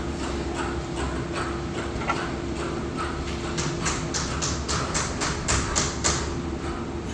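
Rhythmic sharp clicking, about four to five clicks a second for a couple of seconds in the second half, over a steady hum.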